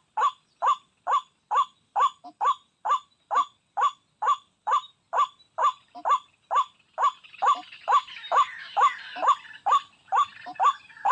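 White-breasted waterhen call, a short note repeated steadily about twice a second, used as a lure call. A rougher, noisier sound joins in from about seven to ten seconds in.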